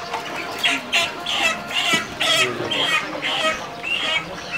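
A bird calling over and over, short pitched calls at about two a second.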